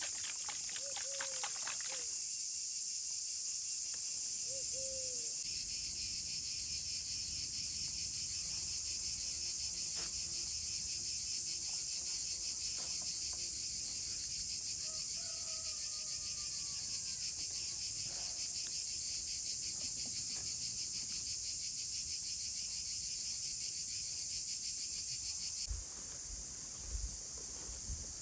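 A dense chorus of insects chirping in a rapid, even pulse. A few short calls cut across it near the start and around the middle, and near the end there are a couple of low thumps as the chorus turns slightly quieter.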